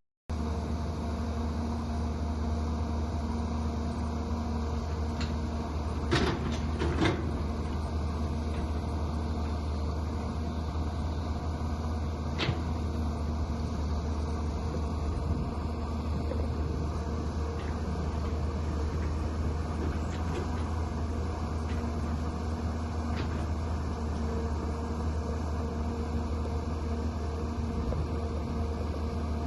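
Excavator diesel engines running steadily under digging load, a constant low drone, with a few sharp knocks, the loudest two around a quarter of the way in.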